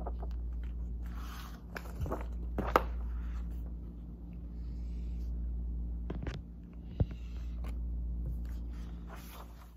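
Marker scratching on paper in a test booklet, with a few sharp taps on the table, over a steady low room hum.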